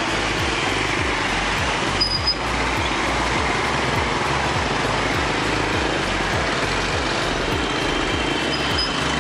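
Motorbike traffic noise heard from a moving motorbike: a steady hum of engines and road noise with a low, pulsing rumble. A short high-pitched tone comes about two seconds in.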